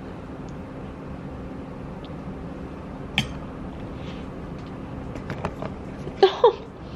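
A metal spoon clinks once against a ceramic bowl while eating, with a few fainter ticks, over a steady room hum. Near the end come a couple of short pitched vocal sounds.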